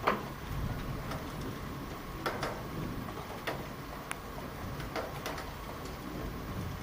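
Steady rain during a thunderstorm, with irregular sharp ticks of drops striking a nearby surface, the loudest right at the start.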